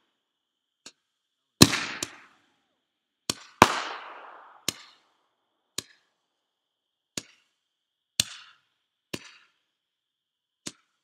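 Fireworks going off: about eleven sharp bangs at uneven intervals, the two loudest, near the start and about three and a half seconds in, trailing off in an echo.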